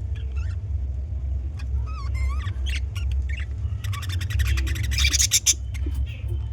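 Budgerigars chirping and warbling in a colony aviary, with wavy, rising and falling calls. A run of rapid clicks comes about four to five seconds in. A steady low rumble runs underneath.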